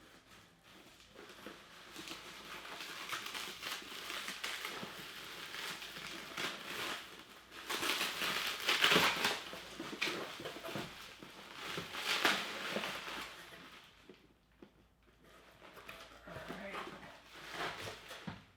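Plastic packaging crinkling as it is pulled and unwrapped by hand, loudest about halfway through and again a few seconds later, then dying down near the end.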